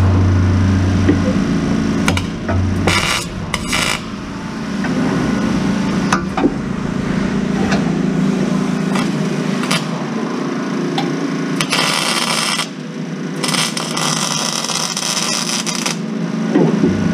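Workshop tool noise over a steady low machine hum: scattered knocks and clicks, with short bursts of harsh noise about three seconds in and longer ones from about twelve to sixteen seconds.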